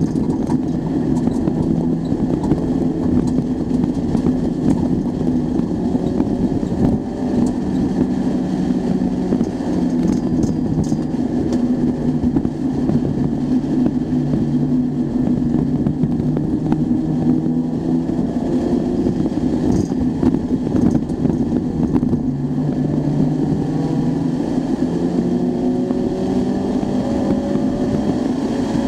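Acura Integra Type R's 1.8-litre four-cylinder engine under hard track driving, heard from inside the cabin. Its pitch climbs and drops back several times with throttle and gear changes, over road noise.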